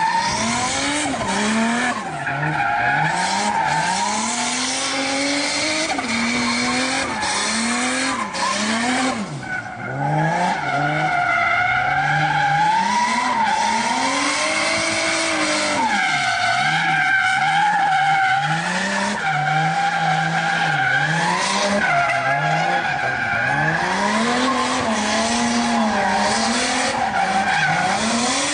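Car doing a burnout: the engine revs up and down again and again while the spinning tyres squeal and skid.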